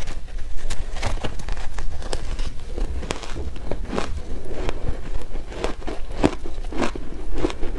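Close-miked chewing and crunching of shaved ice coated in matcha green tea powder, eaten by the spoonful: a run of crisp, irregular crunches, several a second.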